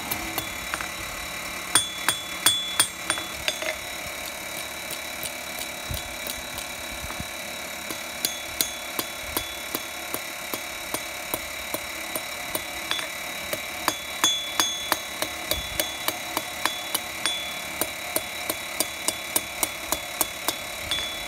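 Hand hammer forging a thin hot steel rod on a steel anvil: a long run of light, quick blows, with the anvil ringing at many of them. The blows are sparse for a few seconds, then after about eight seconds settle into a steady run of two to three a second.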